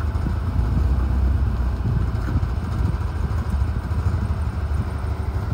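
Suzuki Samurai 4x4's engine running steadily at low revs as the vehicle crawls its front tyre up over a boulder.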